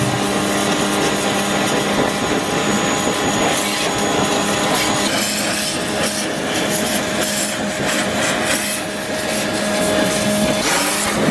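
Small electric pressure washer (jet washer) running steadily, its motor humming under the hiss of the water jet blasting the underside and rear wheel arch of a car.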